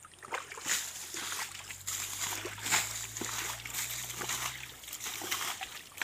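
Many small fish thrashing in the shallow, muddy water of a drained pond pit, making a run of irregular wet splashes and splatters.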